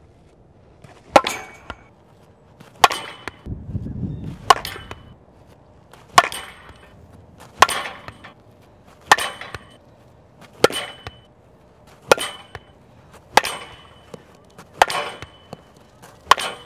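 Fastpitch softball bat hitting softballs, eleven sharp cracks about a second and a half apart, each with a short ringing ping.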